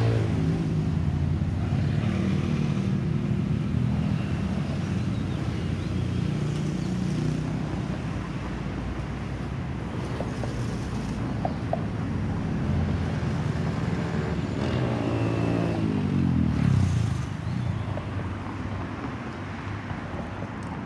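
Distant jet rumble from an Airbus A320-216's CFM56 turbofans, mixed with road traffic. About sixteen seconds in, a vehicle passes close with its engine pitch falling as it goes by; this is the loudest moment.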